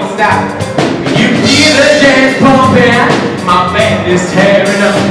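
Live band music from a show choir's combo, with a horn section playing a loud, continuous upbeat passage.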